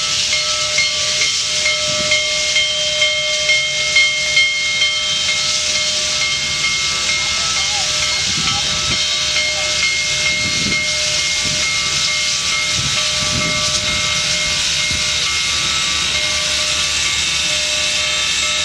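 Union Pacific 4014 Big Boy, a 4-8-8-4 articulated steam locomotive, hissing steam steadily as it moves very slowly. Faint whistling tones run through the hiss, with a regular pulsing in the first few seconds.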